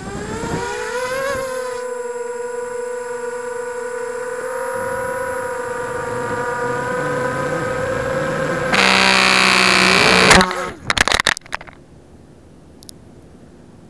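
Small FPV quadcopter's electric motors whining up in pitch as it takes off, then holding a steady whine in flight. About nine seconds in a loud rough burst and several sharp clattering hits mark the crash, and then the motors stop.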